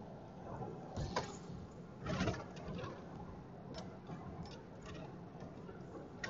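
Scattered, irregular clicks and knocks of a phone and its suction-cup windshield mount being handled and turned about, heard close on the phone's own microphone.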